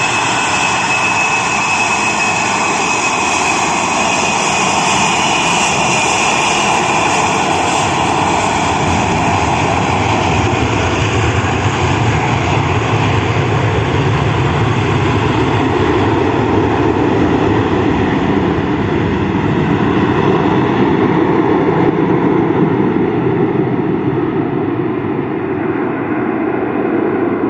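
Four D-30KP turbofan engines of an Ilyushin Il-76MD running at high power as the jet departs, loud and steady. A high whine fades early on, and the sound grows deeper and loses its top end as the aircraft moves away.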